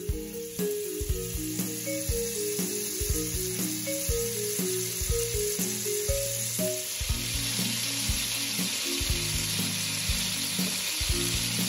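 Butter sizzling as it melts in a hot metal pot, the sizzle growing fuller about halfway through as the butter melts down and foams. Background music with a steady beat plays underneath.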